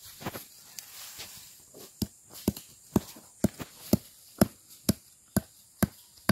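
Tubli (derris) roots being pounded with a hand tool: soft handling noise at first, then a steady run of sharp blows about twice a second from about two seconds in. The roots are being crushed to release their fish-stunning sap.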